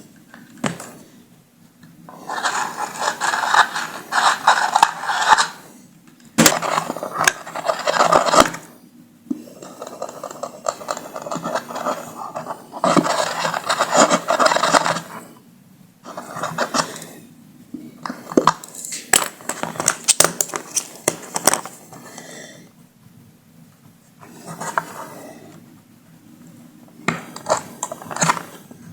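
Hand tools scraping and clinking against metal parts of a speaker driver, in repeated bursts of a second or several, with sharp clicks between them.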